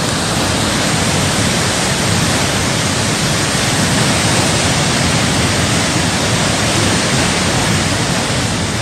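Steady, loud rushing noise of torrential rain and floodwater, an even wash with no distinct events.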